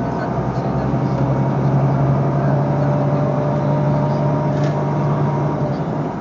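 A vehicle's engine and road noise, heard from inside the vehicle as it drives. A steady low hum fades out near the end.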